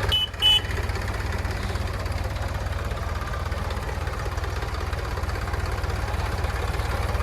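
Heavy diesel engine idling steadily with a low, fast, even throb. About half a second in there are two short, high beeps.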